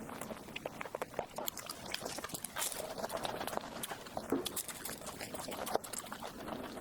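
Close-miked eating sounds: chewing of soft dessert, with many quick wet mouth clicks and smacks.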